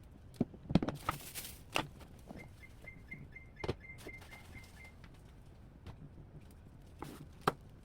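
Household handling sounds during refrigerator cleaning: scattered knocks and clatter of things being moved, with a rustle early on. Midway there is a faint run of about ten quick, evenly spaced high beeps, and there are two sharper knocks near the end.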